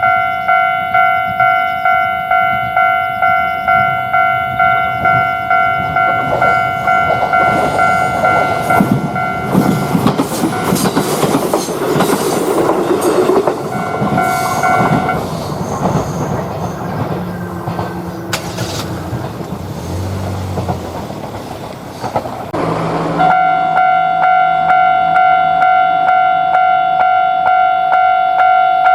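Japanese level-crossing warning bell ringing its rapid repeating 'kan-kan' ding, about one and a half strikes a second. About eight seconds in, an Ichibata Electric Railway train passes over the crossing for some fifteen seconds, its wheels rattling and clacking over the rail joints and drowning the bell. About 23 seconds in, the bell comes back loudly and suddenly.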